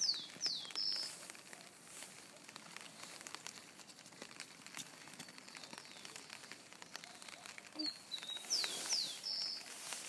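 A songbird singing a short high phrase of chirps and two quick downward slurred notes, once at the start and again about eight seconds later, over faint scattered ticks of light rain pattering.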